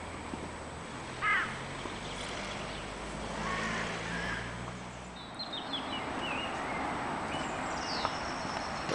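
Outdoor park ambience with wild birds calling: a short chirping call about a second in, then a run of higher chirps and a falling note in the second half. A low steady hum lies underneath and fades out about halfway through.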